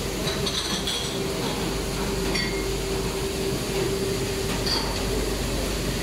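Single-tank conveyor dishwasher running, a steady hum with a rushing noise, and a few light metallic clinks of cutlery in a rack as it comes out through the exit curtain.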